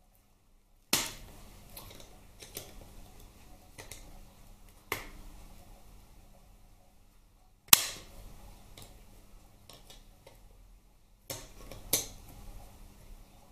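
Sharp metallic snaps and clicks at irregular intervals as circlip pliers work a stiff circlip out of its groove in a Harley-Davidson Twin Cam transmission case, the loudest about eight seconds in.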